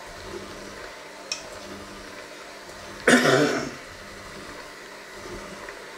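One loud cough about halfway through, over the steady low running of an electric hand mixer kneading flour-and-water dough in a steel bowl.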